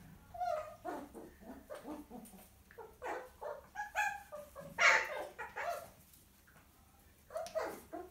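Six-week-old miniature poodle puppy yelping and squealing in a string of short, high cries, the loudest about five seconds in, then a few more near the end: the cries of a puppy being disciplined by its mother.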